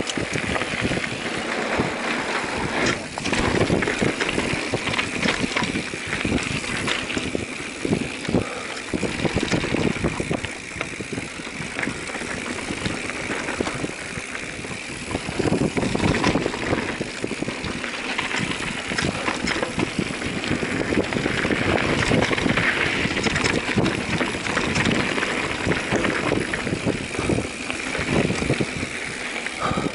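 Mountain bike riding down a dirt forest trail: tyres rolling over soil and roots, with the bike rattling and clicking continually over the bumps.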